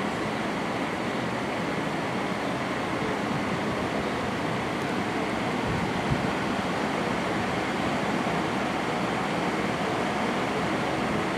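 Steady rushing noise of an electric room fan running, with one soft click about six seconds in.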